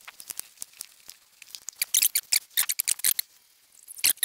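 A sponge applicator wiping across a plastic headlight lens, laying on clear coat, as a run of quick, scratchy swishes. They are densest about two to three seconds in, with a few more near the end.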